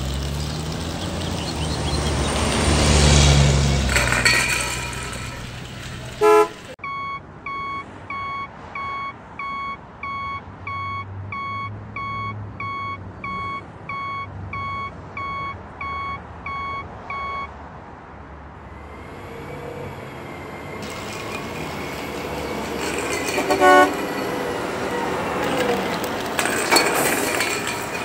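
Truck sounds: an engine running, a sharp click, then a steady run of evenly spaced beeps, about one and a half a second for some ten seconds, like a reversing alarm. After that, engine and road noise build up again, with another click near the end.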